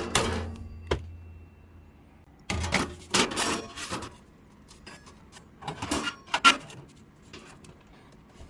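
Clatter and knocks of tools and metal parts being handled, in two rattling bursts about two and a half and six seconds in, with single sharp knocks near the start.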